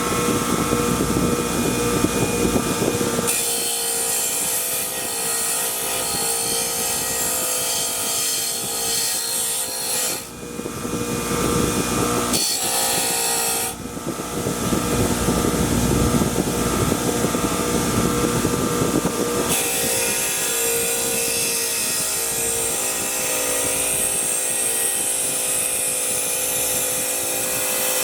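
A power tool running steadily while working against the metal of the hole punch during its restoration, as in abrasive cleaning. The sound changes abruptly several times.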